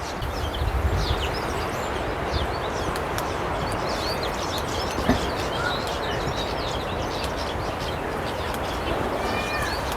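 Many finches chirping together in quick, overlapping short calls, over a steady background noise.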